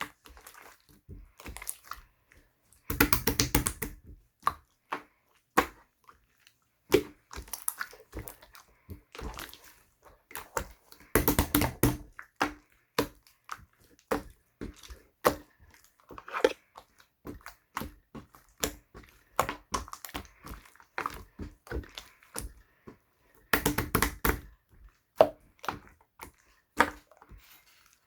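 Light-blue bubble slime being squeezed and poked by hand, giving a stream of sticky clicks and pops, with three denser stretches of crackling.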